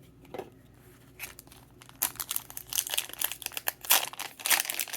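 Foil wrapper of a Pokémon TCG booster pack crinkling and tearing as it is ripped open, starting about two seconds in after a few light clicks.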